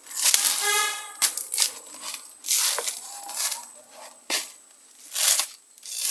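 Coconut husk being torn open and peeled, in a run of short ripping, rasping bursts and sharp cracks and knocks. A short steady tone sounds briefly about a second in.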